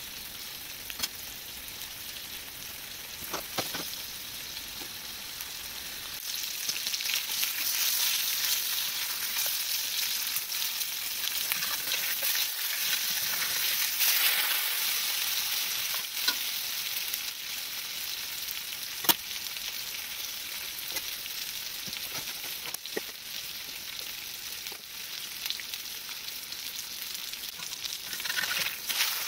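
Catfish fillets sizzling in hot oil in a cast iron skillet, a steady hiss that grows louder for several seconds in the middle. A few sharp clicks of the metal spatula against the pan cut through it, the loudest near the two-thirds mark.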